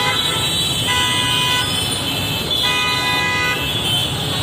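Vehicle horns honking in heavy street traffic: a steady blast fading out near the start, another short one about a second in, and a third around three seconds in, over a constant low traffic rumble.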